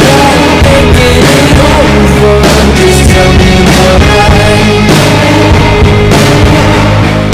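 Loud background music: a rock-style song with a singing voice.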